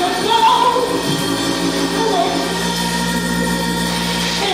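Gospel church music: held keyboard or organ chords, with a voice singing over them.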